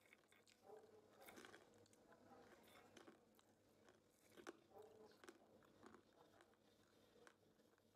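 Faint crunching and chewing of cashew nuts and crispy green peas: a run of irregular sharp crunches.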